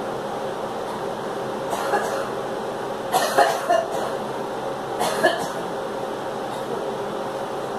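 A girl coughing in short bursts: one cough about two seconds in, a quick run of coughs about three seconds in, and another near five seconds.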